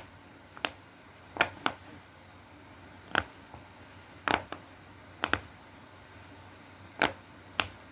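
Plastic fidget toy being clicked by hand: about ten sharp clicks at uneven intervals, some in quick pairs.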